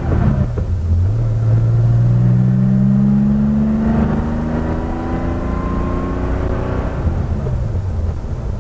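Air-cooled flat-six engine of a Porsche 911SC heard from inside the cabin during a road test: the revs drop for a gear change at the start, then the engine pulls in gear with a slowly rising pitch, and the revs dip again near the end for the next upshift. The freshly rebuilt 915 gearbox is quiet, with no grinding on the shifts.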